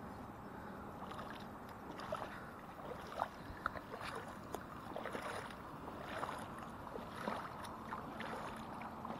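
Feet in sneakers wading through shallow seawater: an irregular splash and slosh with each step, over a steady hiss.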